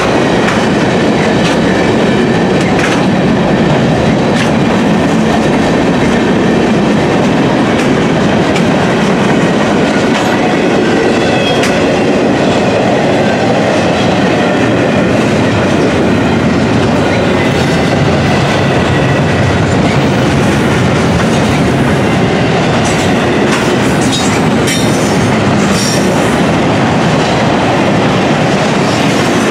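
Long freight train of boxcars and double-stack container well cars rolling past at speed: a loud, steady rumble with the wheels clattering over rail joints.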